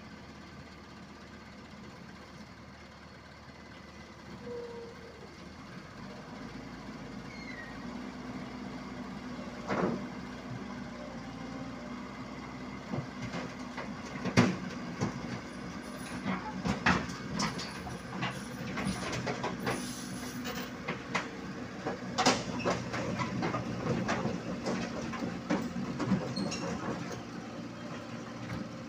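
Komatsu PC75UU mini excavator crawling down the steel deck and ramp of a self-loader truck: its steel tracks clank and knock many times over a steady diesel engine, which grows louder about six seconds in.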